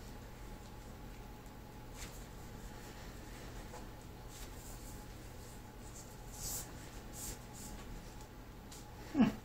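PVC pipe being worked by hand: a heat-softened PVC bow limb pushed and twisted onto a PVC plug, giving faint scuffs and rustles, with a short loud thump near the end.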